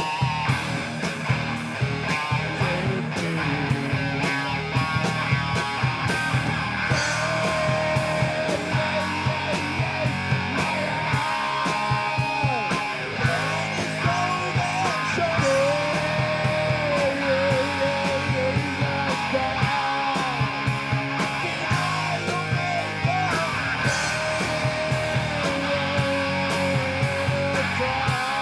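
A rock band playing live, with guitars over drums keeping a steady beat of about two hits a second and a long, wavering lead line on top.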